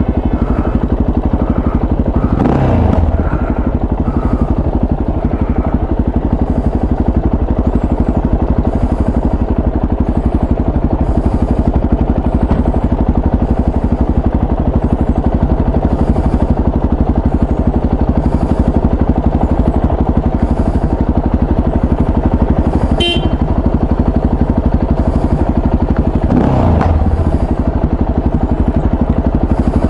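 Motorcycle engine running steadily under way, with two sounds that sweep down in pitch, one a few seconds in and one near the end.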